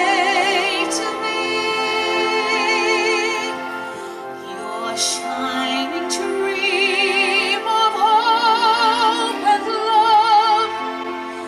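A woman singing a slow ballad into a microphone, holding long notes with a strong vibrato, over an instrumental accompaniment of sustained chords.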